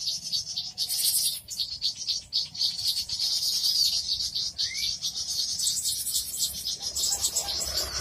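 Recorded bird-lure call track: dense, rapid high-pitched chirping and twittering of small birds, with a short rising whistle about halfway through.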